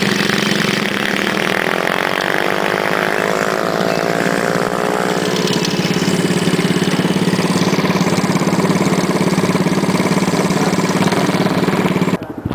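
Motorcycle engine running steadily, rising in pitch as it speeds up a couple of seconds in; the sound cuts off abruptly near the end.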